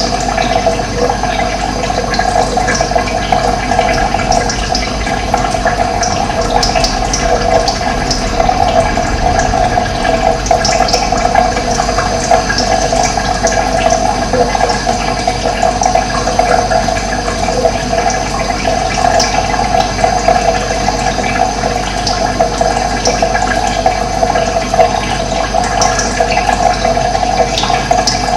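Steady rush of running water from a stream or flowing water course, with occasional short high bird chirps over it.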